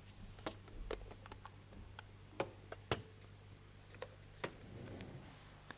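Irregular small plastic clicks and taps of a blood pressure monitor's cuff air-tube connector being handled and plugged in, the sharpest click about three seconds in.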